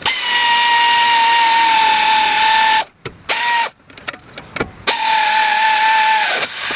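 Handheld electric power tool spinning up to fasten the tie rod end into the steering knuckle: a steady motor whine that sags a little in pitch, in a run of about three seconds, a brief blip, then a shorter run that winds down at the end.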